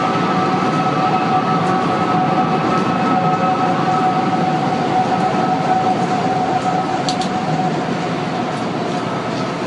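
Wind-driven whistling at the One World Trade Center tower: an eerie two-toned cry, two steady pitches held over the rush of strong wind. It is heard only on very windy days and is put down to a wind-tunnel effect through the unfinished site, though it is not confirmed to come from the tower itself.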